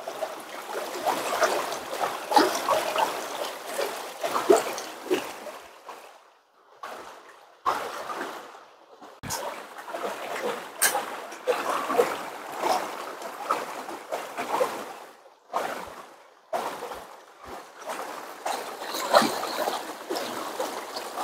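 Water splashing and trickling in uneven spurts, broken by a few short pauses, with small clicks of handling.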